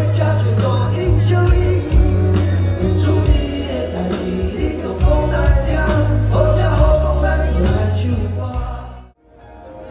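Loud live pop-rock band music through a concert PA, with singing over heavy bass and drums. A little after nine seconds in it drops away abruptly, and softer music then fades back in.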